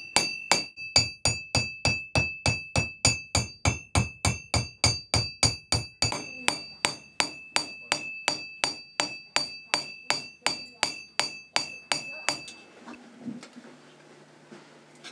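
Silversmith hammering metal with steady, even blows about three a second, each ringing with a clear metallic note; the hammering stops about twelve seconds in.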